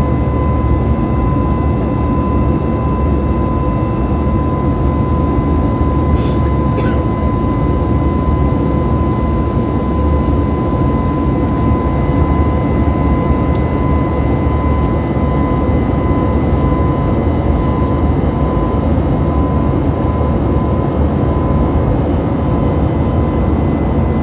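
Cabin noise inside an Airbus A320neo in flight: a steady, loud rush of jet engines and airflow with a faint high whine held throughout.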